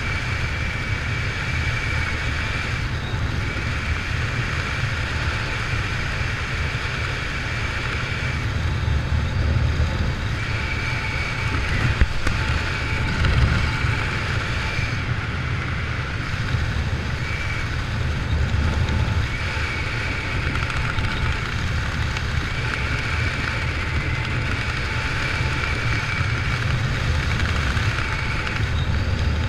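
Freefall wind rushing over a helmet-mounted camera's microphone: a loud, steady rush with a heavy low rumble and a faint whistle that comes and goes.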